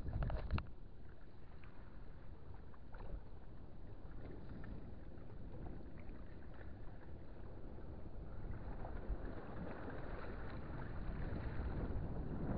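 Wind buffeting the microphone over water lapping against shore rocks, with a few sharp clicks at the very start. The hiss thickens over the last few seconds.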